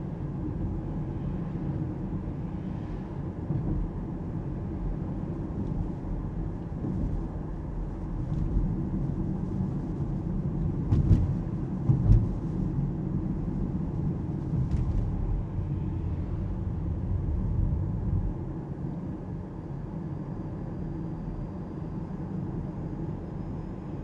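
Alpine A390 electric car driving through town: steady low tyre and road rumble with no engine note, and two louder thumps near the middle, like the car going over bumps.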